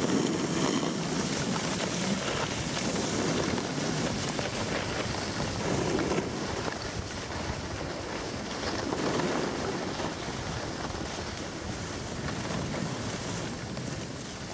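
Skis and a snowboard sliding and scraping over packed snow, with wind rushing over the microphone; the scraping swells now and then.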